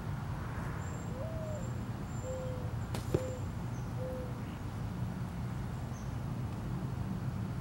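A mourning dove cooing: a low first note that slurs upward, then three steady lower coos. One sharp snap about three seconds in cuts across the song, over a steady low outdoor rumble.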